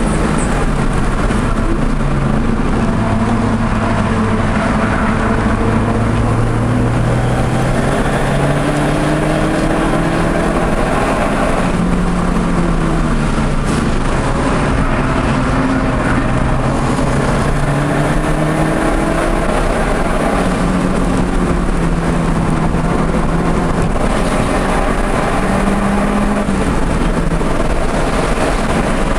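Audi TT engine under hard driving on a race track, heard on board, its pitch climbing through the revs and falling at each gear change or lift, over steady road and wind noise.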